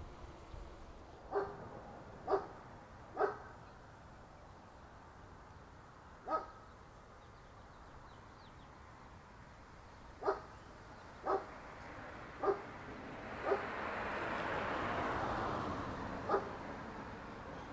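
A dog barking, about nine short single barks at irregular intervals. A soft rushing swell of noise rises and fades about two-thirds of the way through.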